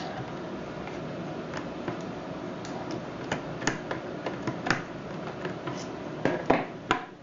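Scattered light metallic clicks and taps as small lock parts of a knob lock are handled and fitted together, the loudest few close together near the end.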